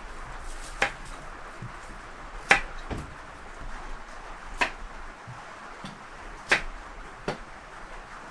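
Five sharp knocks on a wooden table, spaced one to two seconds apart, over a steady hiss of rain.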